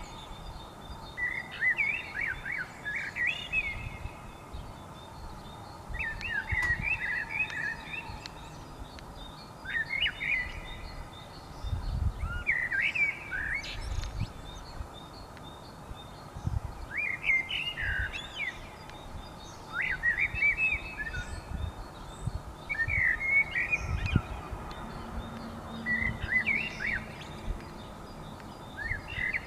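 A thrush singing: short whistled phrases, about one every two to three seconds with pauses between, over fainter rapid chirping from other birds. A few low thumps break in.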